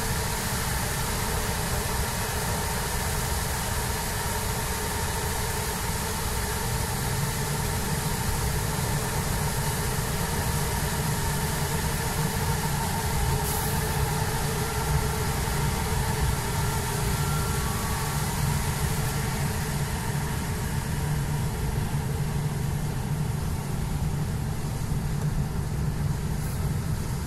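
Semi-truck's diesel engine running steadily, heard from inside the cab, with a low drone that grows a little stronger about a quarter of the way in, over the hiss of tyres on wet road.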